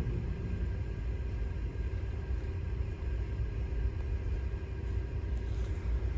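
The concert band's held final chord cuts off at the very start, leaving a steady low rumble of room noise in the hushed gymnasium.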